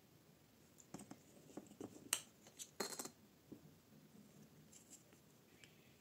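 Faint clicks and light taps of small metal palette pans being picked up and set into a plastic palette, with a short crinkle of a plastic bag near the middle.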